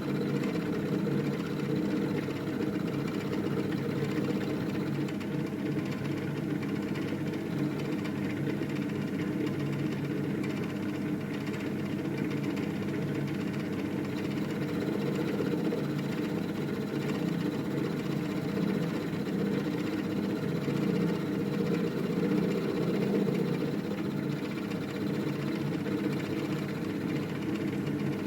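Milling machine running steadily, its end mill cutting a metal bar with an even whir.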